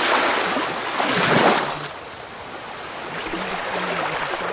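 Ocean waves washing on a shore: a surge swells to a peak about a second and a half in, falls away near the two-second mark, then slowly builds again.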